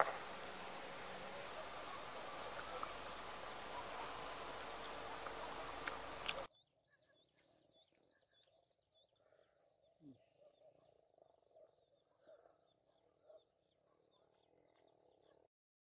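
Steady outdoor hiss of a rural field that cuts off abruptly about six seconds in. After that comes a very faint evening chorus: insects chirping high and frogs calling low.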